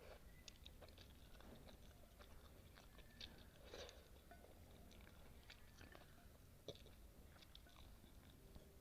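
Faint close-miked chewing of spicy noodles and kimchi: irregular soft mouth clicks and smacks, with a few louder ones about three to four seconds in and again near seven seconds.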